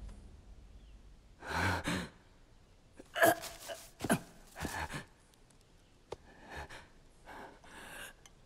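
A wounded man's sharp gasps and heavy, pained breaths, coming in short separate bursts about every half second to a second.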